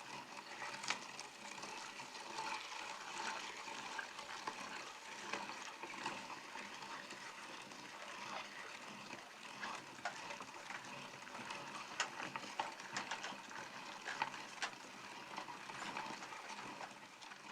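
Meat grinder mincing peppers: a continuous wet squelching and crackling with frequent sharp clicks.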